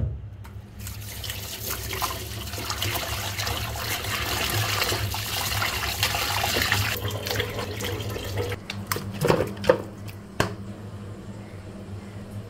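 Kitchen tap running into a pot of raw chicken pieces as they are rinsed and rubbed by hand, water splashing over the meat. The flow stops about seven seconds in, followed by a few knocks, all over a steady low hum.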